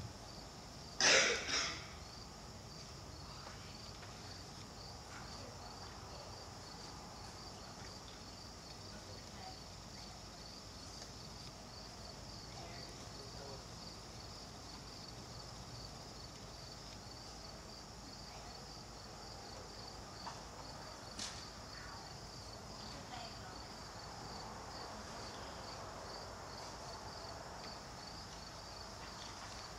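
Steady, high-pitched chirping that pulses about twice a second. There is one short, loud sound about a second in and a sharp click about twenty-one seconds in.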